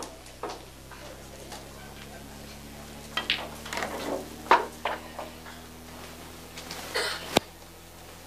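Pool balls clicking: a sharp click at the start and another shortly after. Between about three and five seconds there are scattered short knocks and indistinct voices, and near the end a single sharp click, all over a steady low hum.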